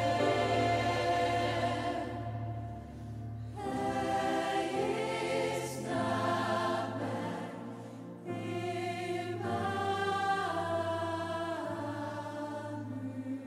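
Slow choral music: voices holding long chords that change every second or two over a steady low bass note.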